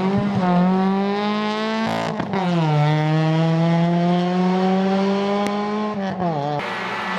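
Seat Ibiza rally car accelerating hard, its engine climbing in revs, with an upshift about two seconds in and then a slower climb through the next gear. The pitch falls about six seconds in. Just after, the sound cuts abruptly to a noisier, hissier car sound.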